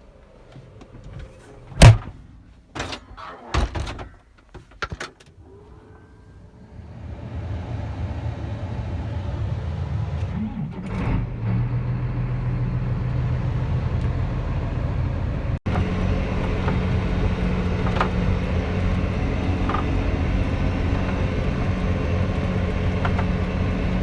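A few sharp knocks and clunks, the loudest about two seconds in; then a tractor engine comes in about seven seconds in and runs steadily, rising briefly around eleven seconds, as it pulls the empty grain wagon.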